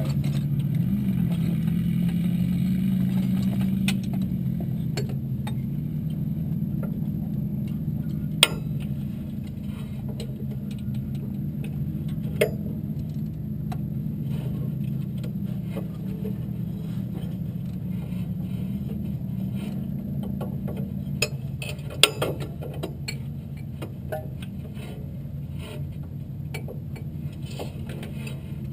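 A vehicle engine running with a steady low drone that slowly grows quieter, with a few sharp knocks about 8, 12 and 22 seconds in.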